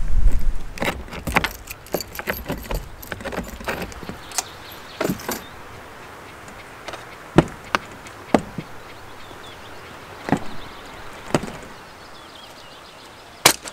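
Wind rumbling on the microphone at first, then a scattered series of sharp clicks and knocks from fittings on a camper van's roof rack being handled, with one loud click near the end.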